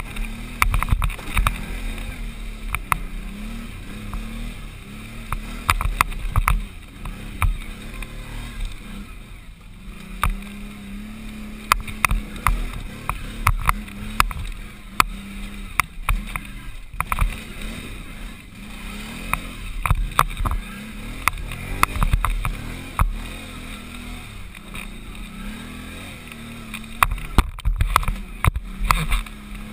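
Can-Am 500 XT ATV engine running under load, its revs rising and falling as it climbs a rough, rocky forest trail. Frequent knocks and clatter come from the machine jolting over rocks and roots.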